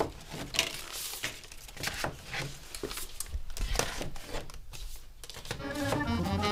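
Plastic and card food packs being handled and shuffled, giving an irregular run of crinkles and crackles. Jazz music comes in near the end.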